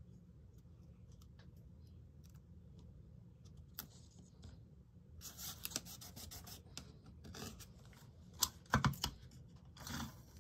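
Fingers pressing and rubbing masking-tape strips down onto paper: faint rubbing and scratching that gets busier about halfway through, with a few sharp taps near the end, over a low steady hum.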